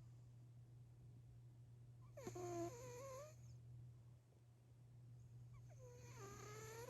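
Domestic cat asleep and snoring faintly: two snoring breaths about three and a half seconds apart, each a wavering pitched tone lasting about a second, over a steady low hum.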